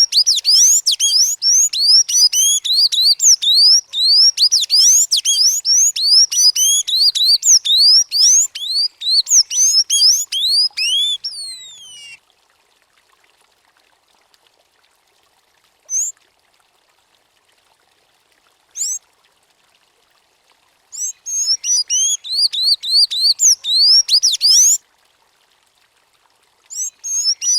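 Sayaca tanager (sanhaçu-cinzento) singing: a fast, squeaky stream of high rising notes for about twelve seconds. Then comes a pause with two single notes, then two more bursts of song.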